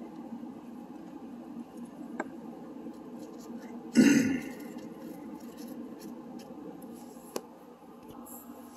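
Small handling sounds of a tobacco pipe and a metal pipe tool being worked by hand: a few faint clicks and one louder short rustling burst about four seconds in, over a steady low background hum.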